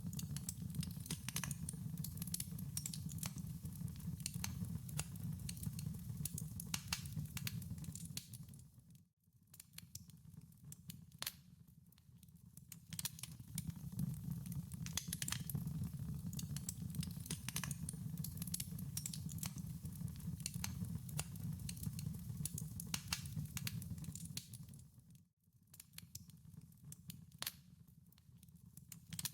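Wood fire burning in a fireplace, with a steady low rumble of flames and many sharp crackles and pops from the burning logs. The sound briefly fades almost to nothing twice, about nine seconds in and near the end, then builds back up.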